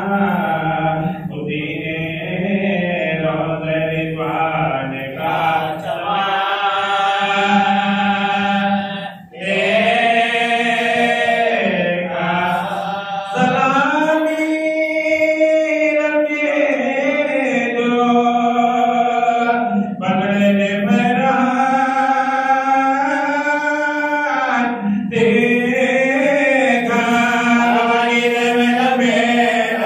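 A man's unaccompanied devotional chant, sung from a text in long, melodic phrases with held notes and short pauses for breath between them.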